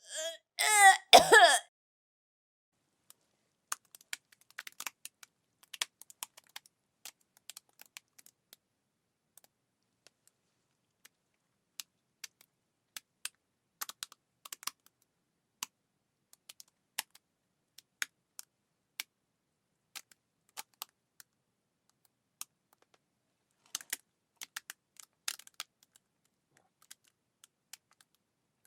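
A person retching, a loud voiced gagging heave in the first second and a half. Then many faint, irregular, sharp clicks scattered through the rest.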